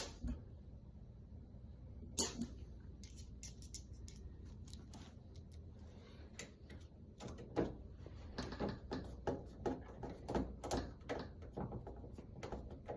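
A Kwikset interior doorknob being slid back onto its spindle and tightened down: scattered small clicks and light knocks of metal hardware. There is a sharper click about two seconds in, then a quick run of clicks and rattles over the last five seconds.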